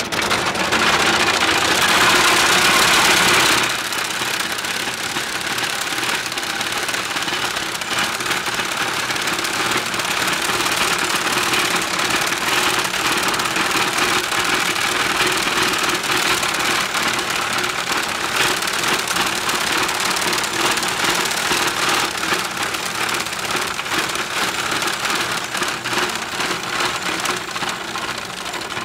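Horse-drawn sickle-bar mower, a Swedish Arvika Verken Viking BV-I, running as it cuts grass. Its ground-driven gears and reciprocating cutter knife make a fast, steady clatter, loudest in the first few seconds.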